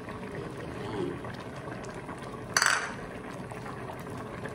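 Pot of coconut-milk squash and shrimp stew simmering, a steady bubbling hiss, with one brief sharp sound about two and a half seconds in.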